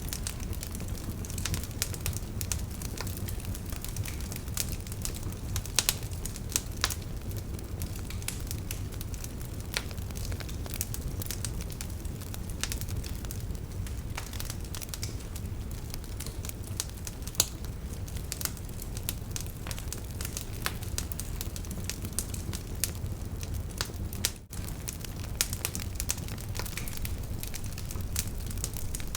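Wood campfire burning: a steady low rumble of flame with many sharp crackles and pops scattered irregularly throughout, and a brief drop in the sound about three-quarters of the way through.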